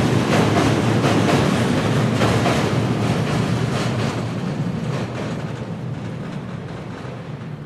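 Train running on rails, wheels clattering over the rail joints, the sound fading steadily in the second half as the train moves away.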